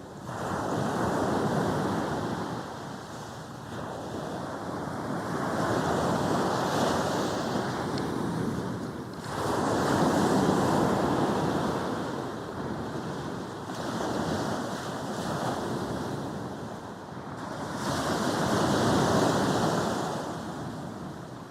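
Sea waves breaking and washing up a beach, the surf swelling and fading in waves a few seconds apart.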